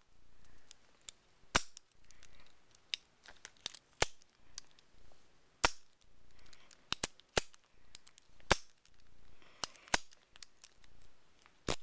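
Vintage Best padlock being worked with an operating key: a series of sharp metallic clicks, one every second or two, as the key turns in the core and the lock opens and locks.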